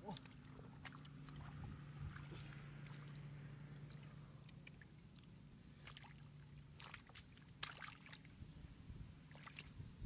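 Faint wet squelches and splashes of hands grabbing fish out of soft, watery mud, with several sharp wet slaps in the second half. Underneath runs a faint steady low hum.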